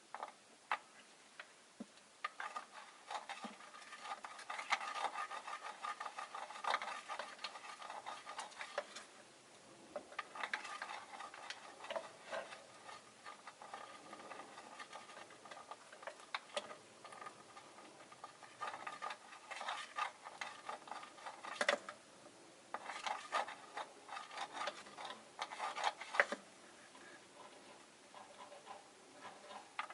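Caged rosy-faced lovebirds making bursts of rapid clicking sounds, several clusters of a few seconds each with quieter gaps between.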